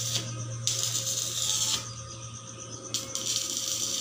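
Stick-welding arc from a small inverter welder crackling on steel, in two bursts of about a second each, as a lock box is tacked onto a steel door frame. A steady low hum runs underneath.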